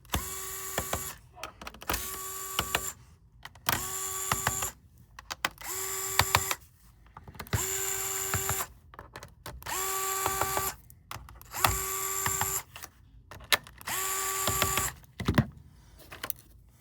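Small electric screwdriver running in short bursts of about a second, about eight times, with clicks and handling between bursts. It is backing out the laptop's bottom-cover screws one after another.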